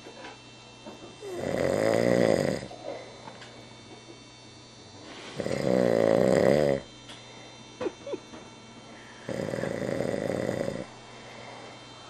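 A man snoring in his sleep: three long snores about four seconds apart, each lasting about a second and a half.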